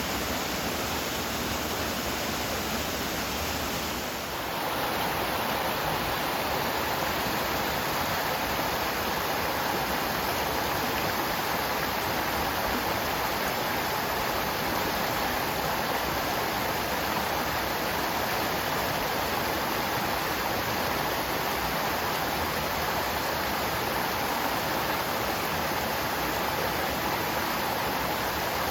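Water of a mountain gorge stream rushing steadily over its bed. The sound dips briefly about four seconds in, then continues a little louder.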